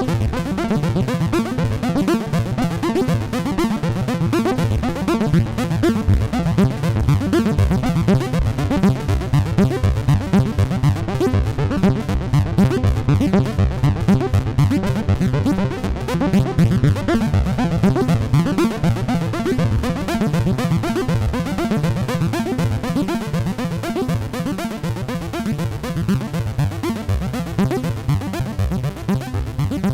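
Dave Smith Instruments Prophet '08 analog polyphonic synthesizer playing a fast run of repeated bass-heavy notes, a dense sequenced or arpeggiated pattern that carries on without a break.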